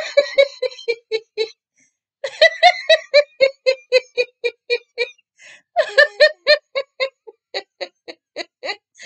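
A woman laughing heartily in rhythmic 'ha-ha-ha' runs, about four or five pulses a second, with short pauses for breath about two and five and a half seconds in. This is self-started exercise laughter, begun as deliberate 'ha' sounds and carried on into real laughing.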